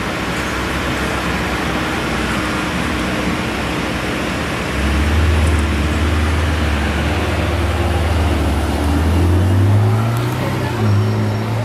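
Ferrari 488 Spider's twin-turbo V8 idling, then pulling away about five seconds in with a deep, steady engine note. The revs rise briefly near the end as it drives past, over general street traffic noise.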